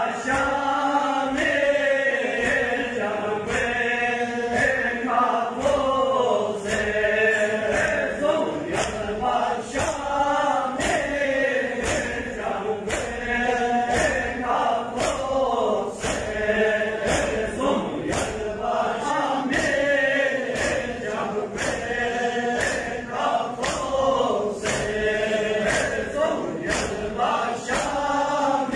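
Balti noha chanted by men: a lead reciter on a microphone with a large crowd of men chanting along in chorus. Chest-beating (matam) marks a steady beat throughout.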